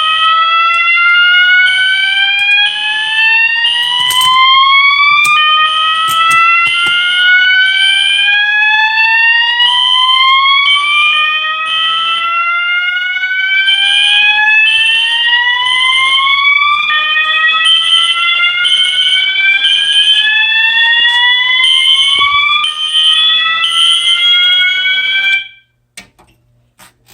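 Fire alarm notification appliances sounding together after a pull station is pulled. A System Sensor MASS set to its whoop tone gives slow rising sweeps that repeat every few seconds, under a high-pitched horn that pulses on and off about twice a second, likely the System Sensor SpectrAlert Classic horn strobe. Both cut off suddenly near the end.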